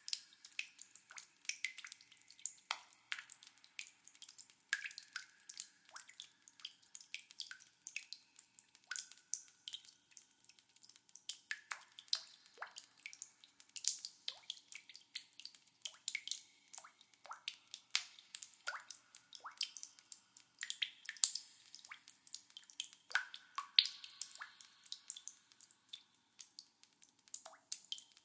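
Water drops falling in a cave, many irregular drips of differing pitch, several a second, each plink ringing briefly in the cave's echo.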